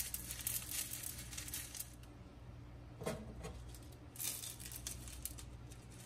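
Clay pebbles rattling and clicking as they are poured from one plastic net pot into another around a seedling's roots: a dense patter of small clicks at first, then scattered clicks with a short burst of rattling a little past the middle.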